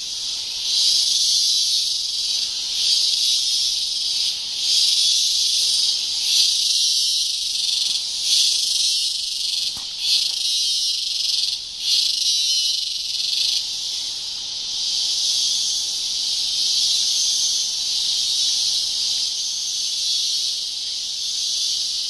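Loud chorus of jungle insects droning, pulsing in waves every second or so for the first half, then settling into a steadier drone.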